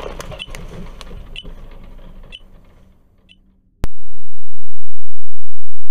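Dashcam recording of a car's road and cabin noise fading out over about three seconds, with a light tick about once a second. About four seconds in comes a single sharp click.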